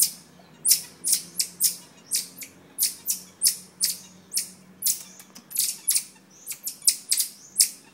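Marmosets giving a rapid series of short, sharp, high-pitched chirping calls, about two to three a second.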